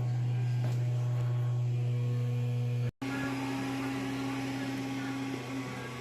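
Steady low electrical hum, cutting out for a split second about three seconds in, then carrying on with a faint higher steady tone over it.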